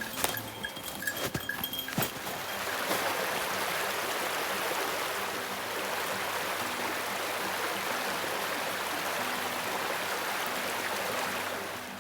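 A few sharp knocks and a steady high tone in the first two seconds, then a steady rushing hiss that holds even until it fades at the end.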